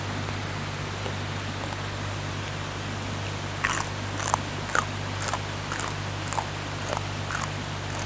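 Crisp crunching as a raw leafy vegetable stalk is bitten and chewed, about two crunches a second, starting about three and a half seconds in. Under it runs the steady rush of a small waterfall.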